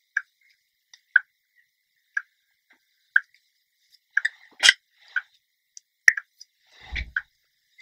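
Quiet clicks and a soft rustle of hair being sectioned and lifted with a plastic tail comb, over a faint, regular tick about once a second.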